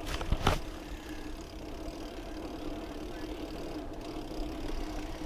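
A Specialized Camber Comp 650b mountain bike rolling along a dirt trail with a steady hum. A couple of sharp knocks come in the first half second as a hand bumps the GoPro.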